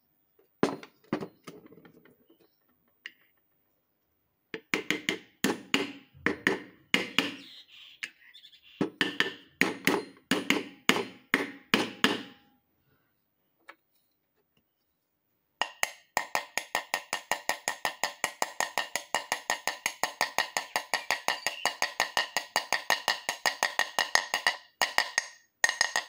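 A hammer tapping on the ball bearing in the hub of a ceiling fan's cast-iron housing. A few separate knocks come first, then two runs of strikes about three or four a second. From about halfway a long, fast run follows, about five or six a second, with a brighter metallic ring.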